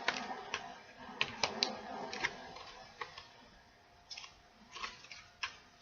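Light clicks and taps of photo prints being handled and shuffled, with a few short soft rustles in the second half.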